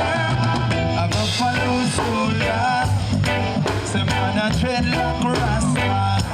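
Upbeat Jamaican-style music, in the ska and reggae vein, with a steady drum beat, a moving bass line and a melody over it.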